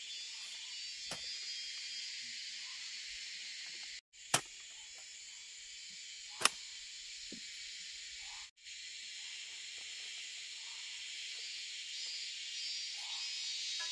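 Steady chorus of insects with faint scattered chirps, broken by two sharp knocks about two seconds apart near the middle.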